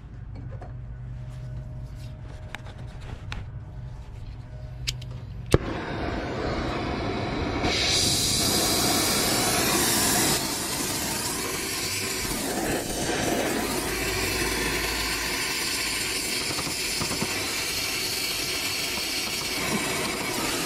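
Brazing torch lit with a sharp pop about five and a half seconds in, then the steady hiss of its flame, loudest for a couple of seconds around eight to ten seconds in, as it heats the copper joints of a heat pump reversing valve. Before the pop, a low hum and a few light clicks.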